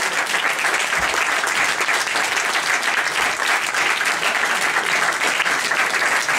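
Theatre audience applauding, a dense steady clapping that holds at the same level throughout.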